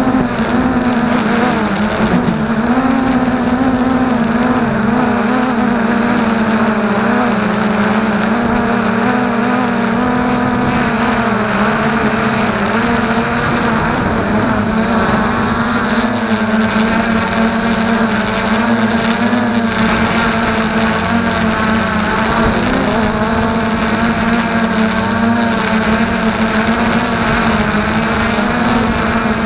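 FreeX Skyview quadcopter's motors and propellers whining steadily in flight, close to the camera on the craft. The pitch wavers up and down a little as the throttle changes.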